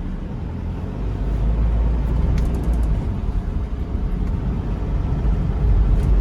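Toyota Innova being driven: a steady low rumble of engine and road noise that grows louder about a second in.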